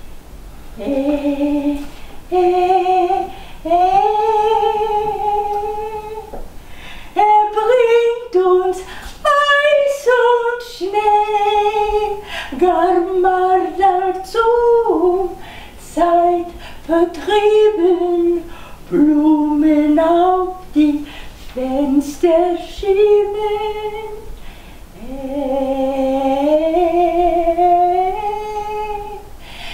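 An elderly woman singing unaccompanied, a melody of held notes joined by slides, phrase after phrase, with long drawn-out notes near the start and near the end.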